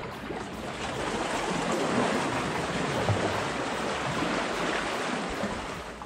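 Sea water washing against breakwall rocks: a steady rush of wave noise.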